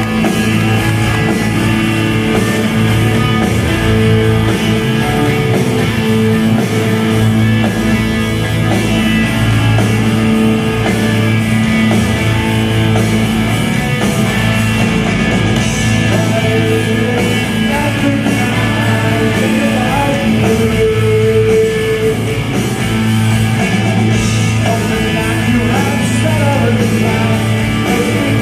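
A rock band playing live: electric guitars, bass and drums in a full-band song, with a singer's voice over them.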